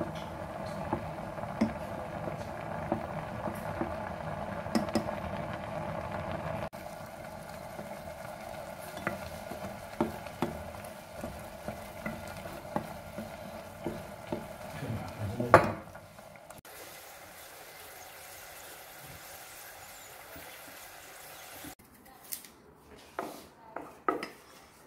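Black beans bubbling in reducing soy-sauce syrup in a pot while a wooden spoon stirs them, with frequent knocks and scrapes of the spoon against the pot; the loudest knock comes about two-thirds of the way through. The bubbling then dies away, and a few separate knocks sound near the end.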